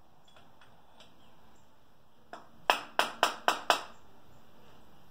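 Five quick, sharp knocks on metal with a short ring, about four a second, starting about two and a half seconds in and coming just after a fainter tap, during hand work on an engine mounted on a stand.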